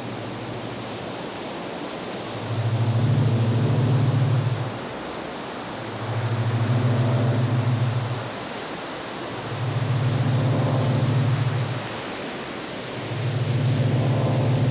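Steady rush of surf and wind with a low drone that swells in and fades four times, each swell about two seconds long, roughly every three and a half seconds.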